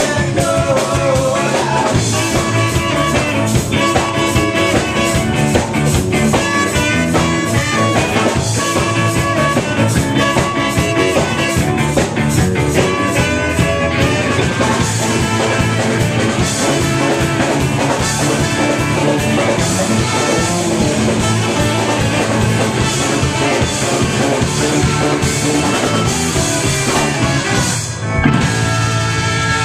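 Rock band playing live and loud: electric guitar, bass guitar and drum kit, with saxophone and trumpet, through a pocket camcorder's microphone. The music thins briefly near the end before coming back in.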